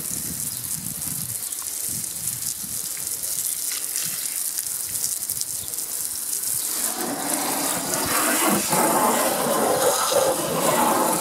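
Water jetting from a garden-hose spray gun onto a car's alloy wheel and the wet ground, a steady hissing spray rinsing off wheel cleaner and brake dust. From about two-thirds of the way through it gets louder and fuller as the nozzle is brought close to the wheel.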